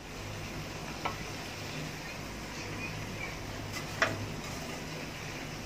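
Marinated chicken pieces sizzling as they deep-fry in oil in an aluminium kadai, over a steady low hum. A metal slotted spoon clinks against the pan twice, about a second in and more loudly about four seconds in.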